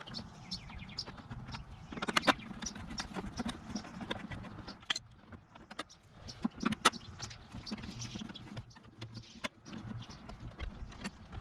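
Scattered clicks and light taps of hand tools and small bolts being handled while bolts are undone, with a louder cluster about two seconds in and a couple of sharper clicks near seven seconds.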